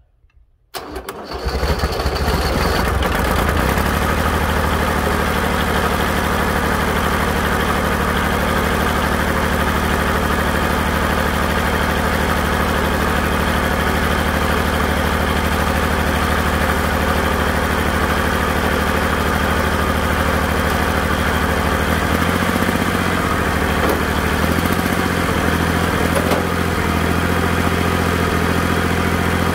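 Kubota L2201 tractor's diesel engine cranking and catching within about a second, then idling steadily on its first run after sitting neglected for years. The idle wavers slightly near the end.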